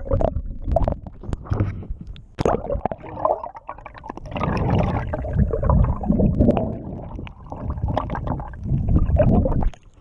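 Muffled gurgling and sloshing of seawater heard from below the surface, with scattered knocks.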